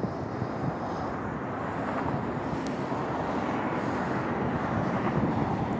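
Steady rumble of a passing vehicle, slowly growing louder.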